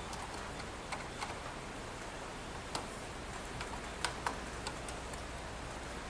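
Small scattered clicks and ticks of a screwdriver working the screw terminals on a fire alarm control panel's circuit board as wires are landed, about eight in all and irregular, the sharpest a pair about four seconds in. A steady hiss runs underneath.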